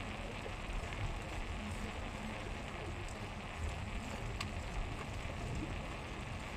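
Steady rushing wind and tyre-on-road noise from a moving bike, heaviest in the low rumble, with a single sharp click about four and a half seconds in.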